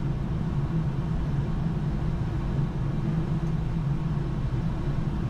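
Steady flight-deck noise of a Boeing 787-9 in flight on approach: an even drone of airflow and engines with a low hum.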